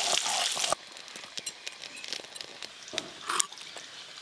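Potato chunks frying in hot mustard oil, a dense sizzle that cuts off abruptly under a second in. Then comes a quieter stretch of scattered light clicks and scrapes from a hand gathering ground paste off a stone grinding slab.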